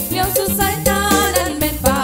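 A Lao dance song: a singer with strong vibrato over a band with bass and a steady, even percussion beat.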